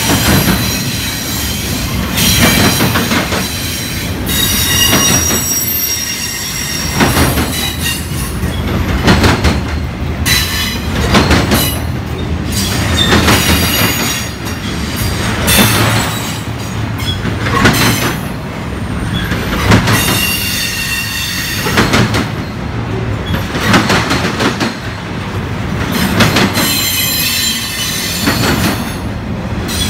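Freight train of double-stack intermodal well cars rolling past close by. Steel wheels clack over rail joints every second or two, under a steady rumble, and high-pitched wheel squeal comes and goes.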